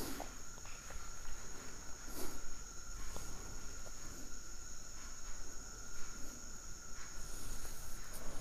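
Quiet room tone: a faint, steady high-pitched whine, with a few soft knocks and shuffles.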